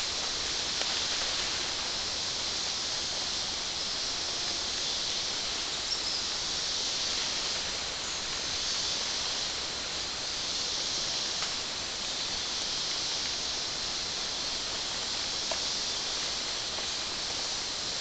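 Rainforest background: a steady high-pitched hiss that slowly swells and fades, with a few faint clicks or snaps from the canopy.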